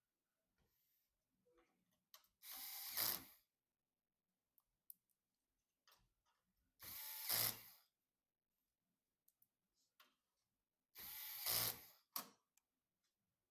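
Small electric screwdriver driving screws in three short runs of about a second each, each getting louder as it ends, with faint clicks of handling between.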